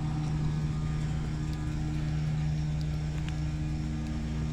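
A steady low engine or motor drone, an even hum that holds the same pitch throughout.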